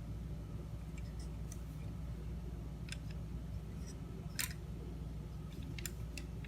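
Scattered small sharp clicks and ticks of tools and small metal parts being handled while the turntable's automatic tone-arm mechanism is taken apart, the loudest about four and a half seconds in. A steady low hum runs underneath.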